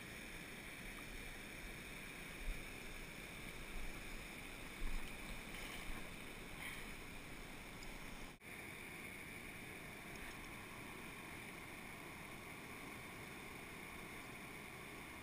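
Steady rush of a shallow mountain stream running over rocks, with a few brief low bumps on the microphone. The sound breaks off for an instant just past halfway.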